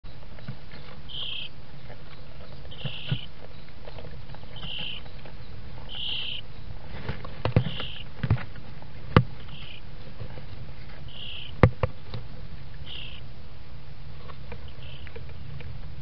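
Short high squeaks repeating about every one and a half to two seconds inside a wooden nest box, over a steady low hum. A few sharp knocks on the wood come a little past halfway, as a small furry intruder moves about on the nest.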